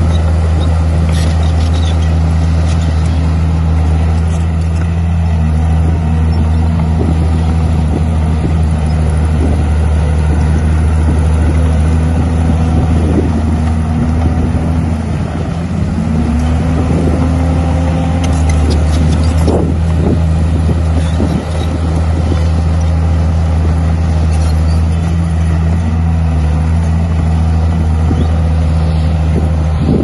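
Komatsu D51 bulldozer's diesel engine running steadily under load, its pitch dipping and recovering now and then as it pushes soil, with a few short clanks.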